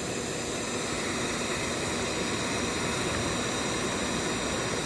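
Electric heat gun blowing steadily, an even rushing hiss of its fan and hot air.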